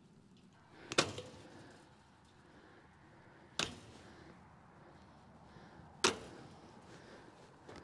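Three sharp strikes about two and a half seconds apart, the first the loudest: a long-handled digging tool being driven down into the dirt.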